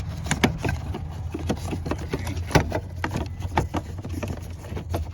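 Irregular plastic and metal clicks and knocks of a turn signal flasher and its wiring being handled and pushed back into place under a car's dash, over a steady low hum.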